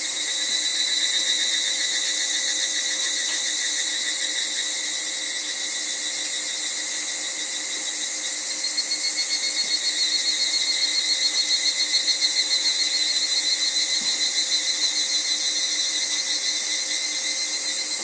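Summer cicada chorus: a steady high drone with higurashi (evening cicadas) calling over it in rapidly pulsing phrases, one from about half a second in and a louder one from about eight and a half seconds in that swells and then fades out near the end.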